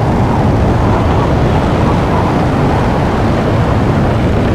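Designed sound-effect loop of a meteorite travelling through the atmosphere: a loud, steady, dense rumble layered from rumbling sounds, rocket-thruster sounds and wind.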